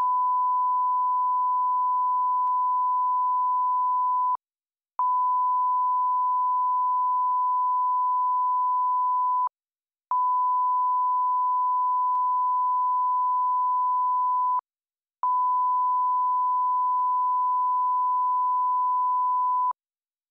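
Television test-card tone: a steady, pure, mid-pitched sine tone that stops for about half a second roughly every five seconds, four times, with a faint click at each break.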